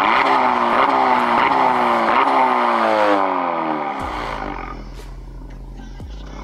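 Straight-piped Honda Civic exhaust, with resonator and muffler deleted, as the engine is revved to about 4,000 rpm and held there for a few seconds. It then drops back to idle about four seconds in.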